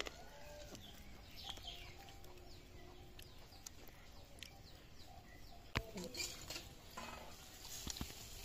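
Small birds chirping now and then, with a few sharp clicks in the second half.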